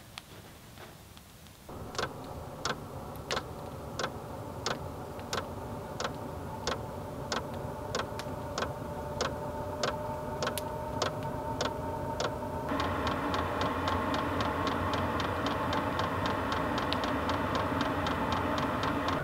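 Diesel air heater running up: its fan starts with a steady hum about two seconds in, and the fuel pump ticks about one and a half times a second. Past the halfway mark the hum steps up louder and higher, and the pump's ticking quickens to about five a second as the heater raises its output.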